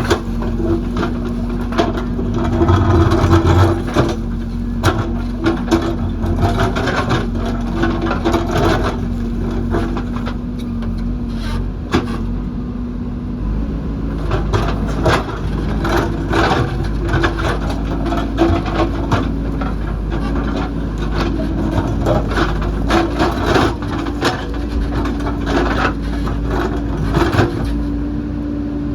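JCB backhoe loader's diesel engine running under load, with frequent knocks and scrapes of the bucket working rock and earth. The engine note shifts about halfway through.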